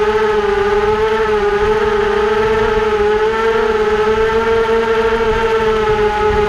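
Motor and propeller of a small radio-controlled aircraft, heard from its onboard camera: a steady, high-pitched drone whose pitch wavers slightly up and down.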